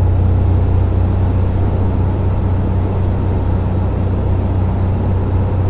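Steady drone inside the cabin of a 1957 Cessna 180 on final approach: its 230-horsepower Continental O-470 six-cylinder engine and propeller running at reduced power, with airflow noise over a strong low hum.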